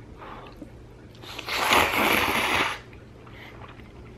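A long, noisy slurp of spicy stir-fried chewy noodles, starting just over a second in and lasting about a second and a half.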